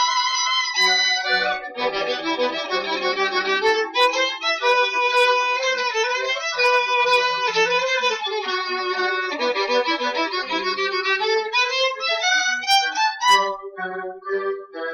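Violin played at a lively tempo, a held note giving way to a fast run of short, detached notes, thinning out to a few separate notes near the end.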